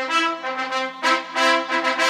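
Background music made of sustained, held notes that change every second or so.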